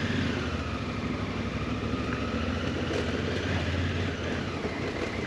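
Motorcycle engine running steadily, with a slight wavering in pitch.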